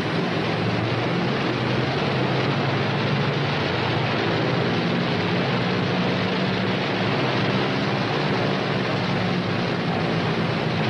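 Northrop P-61 Black Widow's two Pratt & Whitney R-2800 radial engines running at low power as the aircraft taxis: a steady low drone under a constant hiss.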